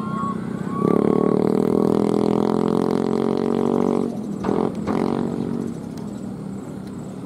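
A loud, steady droning hum of even pitch comes in about a second in and fades out after about five seconds. Short, high, rising-and-falling calls are heard before it.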